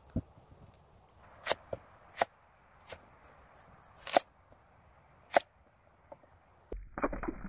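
A cleaver chopping peeled raw potatoes on a wooden cutting board: single sharp chops roughly once a second, then a brief cluster of clattering near the end as the pieces are moved on the board.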